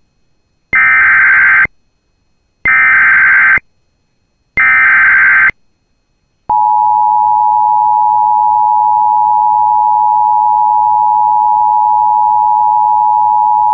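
Emergency Alert System SAME header: three screechy data-tone bursts of about a second each, a second apart. About six and a half seconds in, the steady two-tone EAS attention signal begins and holds. Together they open a new severe thunderstorm warning.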